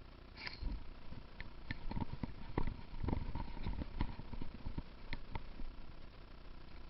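Irregular thumps and knocks, like the footsteps of a player moving on foot over the ground, with a few sharp clicks mixed in. They start about one and a half seconds in and thin out near the end.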